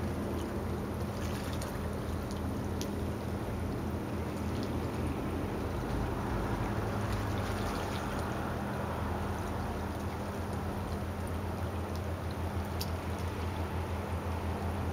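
Gentle water lapping and trickling at the surface, over a steady low hum with a few faint high clicks.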